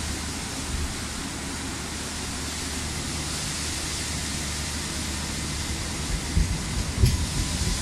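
Alstom Citadis tram rolling slowly past, a steady hiss with a low hum from its running gear. A few low knocks come near the end.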